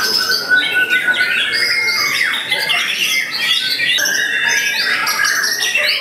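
Young wild-caught white-rumped shama singing loudly, a continuous run of varied whistles, quick up-and-down glides, fast trills and harsh rattling notes.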